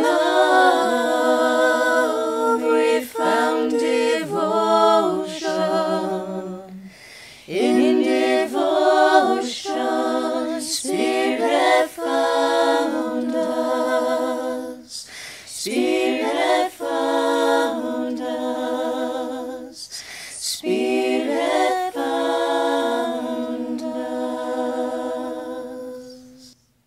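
A cappella singing of a slow, repeating refrain: long held notes in phrases with short breaths between them. It fades and stops just before the end.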